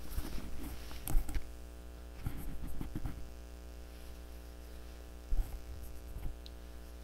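Steady mains hum with a stack of overtones from an electric guitar rig waiting to be played. A few soft clicks and knocks from handling the guitar, the loudest about a second in and another just past five seconds.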